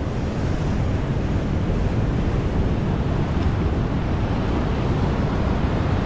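Steady wash of ocean surf with wind noise on the microphone.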